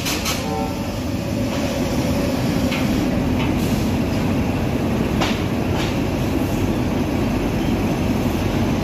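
Steady hum and rumble of a standing Indian Railways WAP-7 electric locomotive running at rest, with a few short clicks, the sharpest about five seconds in.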